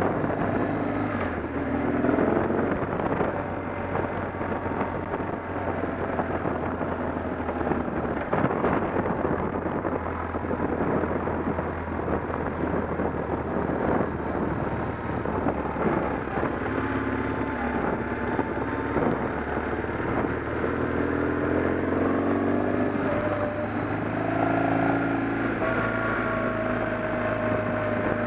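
An engine running steadily, with a constant low hum under a rushing noise.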